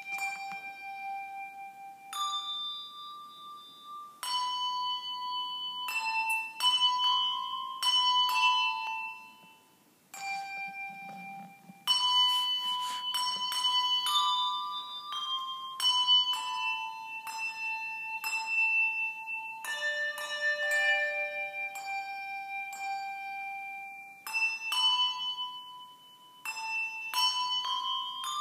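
Handbells played as a tune by a children's handbell choir: single bell notes struck one after another, sometimes two at once, each ringing on and fading. The notes stop briefly about ten seconds in, then carry on.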